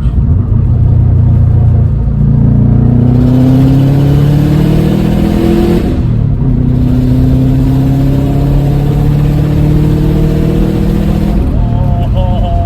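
Subaru Impreza wagon's flat-four engine pulling hard at full throttle. It revs up through a gear, drops in pitch at an upshift about six seconds in, climbs again through the next gear, and drops off near the end.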